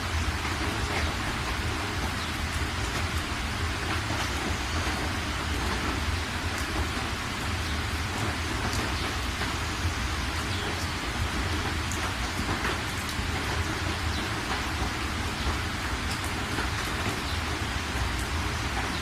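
Steady heavy rain falling, a dense even hiss with many scattered drop ticks and a continuous low rumble underneath.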